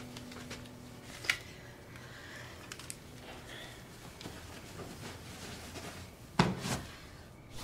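Quiet room with soft handling sounds of a pillow and bedding being moved, a sharp click about a second in, and two louder short sounds near the end.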